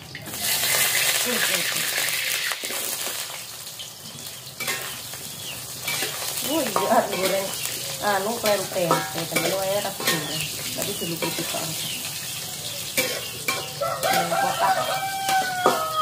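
Food sizzling as it goes into hot oil in a wok over a wood fire, loudest in the first few seconds and then settling into steady frying, with a spatula scraping and clicking against the pan. Chickens cluck and a rooster crows in the background from about six seconds in.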